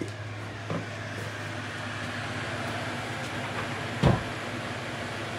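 Steady low room hum with a hiss of background noise, broken by a light knock just under a second in and a loud thump about four seconds in from the handheld phone being moved and handled.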